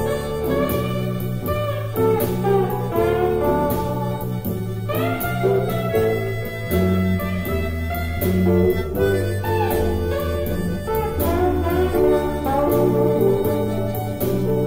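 Harmonica playing a blues melody with bent, gliding notes over a backing track of bass and guitar.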